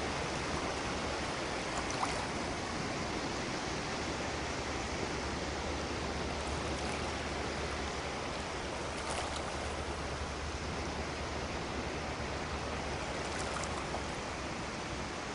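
Seawater washing and swirling, a steady hiss of moving water with a few faint ticks.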